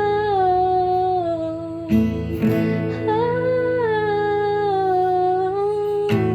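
A woman sings two long held notes without words, each sliding down in pitch, over an acoustic guitar strummed about two seconds in and again near the end.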